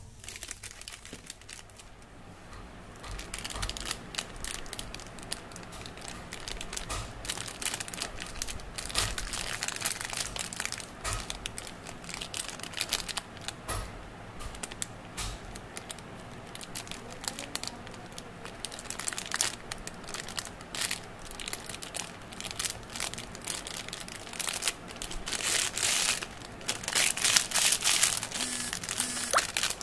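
Hands crumpling and crinkling candy wrappers, first a foil wrapper, then a plastic lollipop wrapper, in irregular crackles that are loudest near the end.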